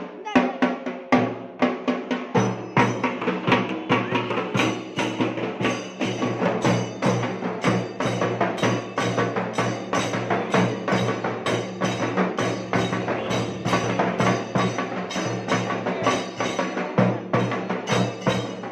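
A group of double-headed drums beaten in a fast, steady rhythm, with a low steady hum underneath.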